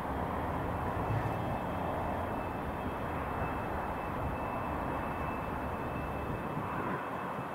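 Steady low rumble of diesel locomotives running in a freight yard, with a faint steady high whine over it.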